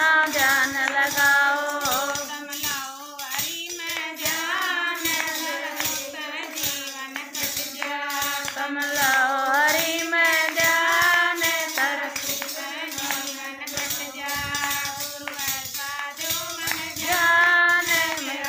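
A woman singing a Haryanvi bhajan, keeping a steady beat with a rattling plastic hand clapper.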